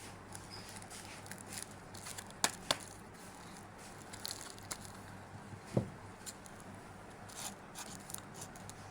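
Scattered light clicks and rustling, the sound of small objects being handled, over a faint steady low hum. No motor is running.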